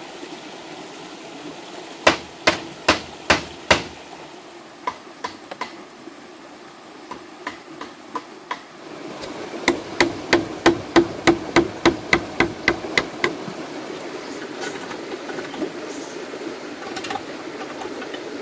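A large blade chopping into hollow green bamboo tubes to cut joint holes: five heavy knocks, then lighter taps, then a quick run of about three strokes a second that ring in the hollow bamboo. An even rush of a stream runs underneath.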